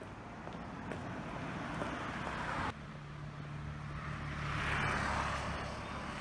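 Street traffic: road noise swells as a car passes, then cuts off abruptly about three seconds in. Another car swells past, loudest about five seconds in, over a steady low hum.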